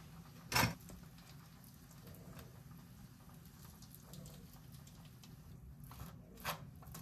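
Diced avocado being tipped onto toast and mashed in with a metal fork on a ceramic plate: a sharp knock about half a second in, then soft squishing, and a few clicks of the fork against the plate near the end.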